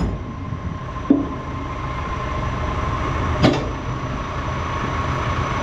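Tractor engine running steadily while driving with the trailer, with two clunks: one about a second in and a sharper one about three and a half seconds in.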